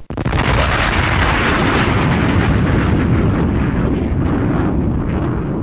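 A loud, steady noise with a deep rumble sets in suddenly, then fades slowly near the end.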